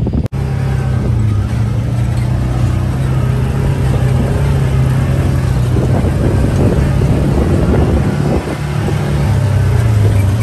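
Engine of an off-road side-by-side UTV running under way on a dirt trail, a loud steady drone whose pitch dips and shifts briefly near the end.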